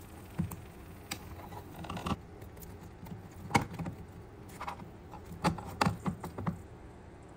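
A kitchen utensil clicking, knocking and scraping against a nonstick frying pan as caramel-glazed turon (banana spring rolls) are turned over. The clicks are irregular, with the sharpest about halfway through and several close together near the end.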